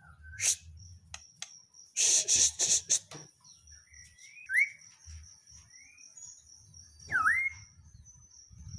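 White-rumped shama (murai batu) calling from its cage: a loud harsh rasping burst about two seconds in, then two rising, hooked whistled notes a couple of seconds apart. A steady high insect trill runs underneath.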